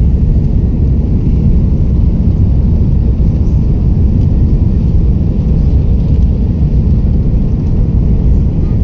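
Airbus A330-300 jet engines at takeoff power: a loud, steady, low roar with no clear pitch.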